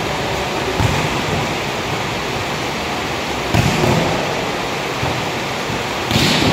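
Volleyballs being struck in a large echoing hall: three sharp hits, about a second in, near four seconds and near the end, over a steady rushing noise.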